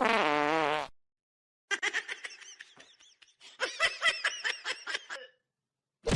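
A short wavering pitched sound, then laughter in quick rhythmic bursts of 'ha' pulses that grow louder for a second or so before trailing off.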